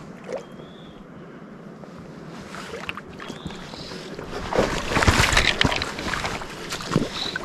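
Water splashing and sloshing in rocky shallows, building up and loudest around the middle, with a few low thumps.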